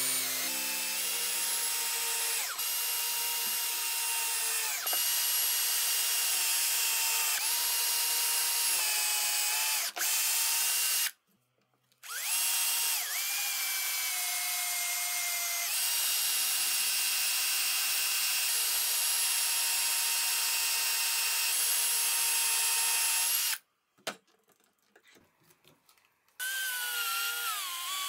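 Cordless drill running under load as it bores and countersinks holes into a wooden block, its motor whine dipping in pitch and recovering as the bit bites. It stops twice, briefly about eleven seconds in and for a couple of seconds about 24 seconds in, and near the end it drives wood screws with a wavering pitch.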